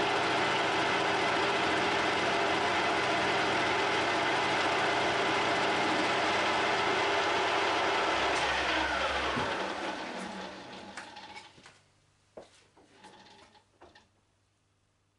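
Metal lathe running, turning an offset cam in a four-jaw chuck with the tool cutting. About eight seconds in it is switched off and the motor whine falls in pitch as the spindle spins down, followed by a few light clicks and knocks as the part is handled and measured with calipers.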